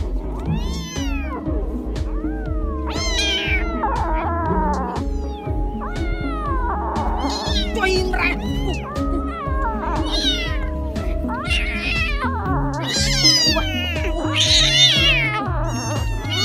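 Kittens meowing over and over, high calls rising and falling and often overlapping, over background music.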